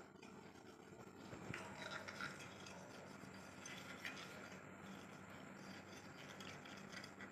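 Faint dry scrubbing: a metal oil lamp rubbed by hand in dry rice flour inside a steel basin, working the sticky oil grime off it, with a few light knocks.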